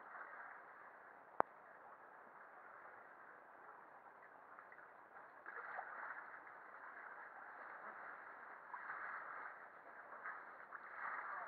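Faint water lapping and splashing around an inflatable canoe in a sea cave, with a single sharp click about a second and a half in.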